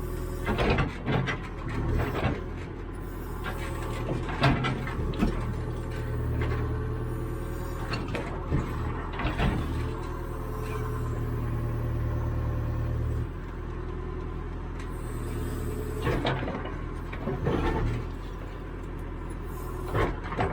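Caterpillar 428E backhoe loader's diesel engine running steadily, with sharp metallic knocks and clunks from the working digging equipment every few seconds. The engine note eases slightly about two-thirds of the way through.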